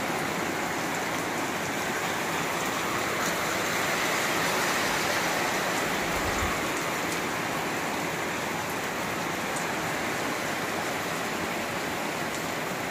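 Heavy monsoon-style downpour: a steady, dense hiss of rain falling on the yard, paving and plants.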